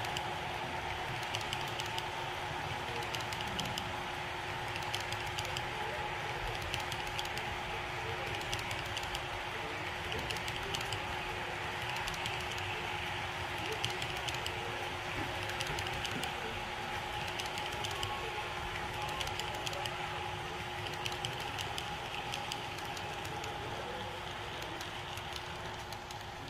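Athearn HO-scale tank cars rolling along model track, their small metal wheels clicking irregularly over the rail joints, over a steady hum. The sound eases off slightly near the end as the caboose comes by.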